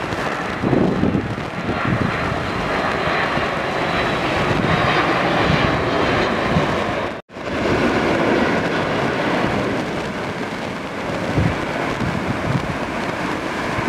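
Airbus A330 twin-jet airliner on final approach, its engines making a steady loud jet rush with a faint high whine. The sound drops out for an instant about seven seconds in.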